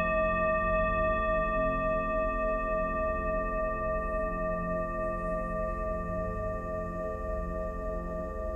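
Singing bowl ringing after a strike, its several clear tones held and slowly fading over a low drone.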